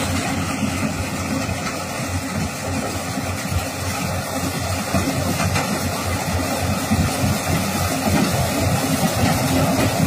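Yanmar crawler combine harvester running steadily while harvesting corn: its engine and machinery make an even, continuous noise.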